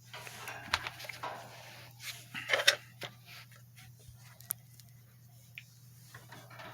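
Handling noises from a Sunbeam SFH 442 space heater being moved and turned over: rustling, scraping and short clicks, busiest in the first few seconds and then a few scattered ticks. A faint steady low hum lies underneath.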